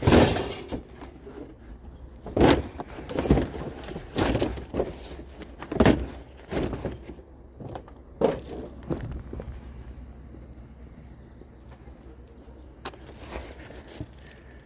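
Irregular thumps and clatter of household junk being picked up and dropped or tossed, with a few louder knocks in the first half and a quieter stretch after about nine seconds.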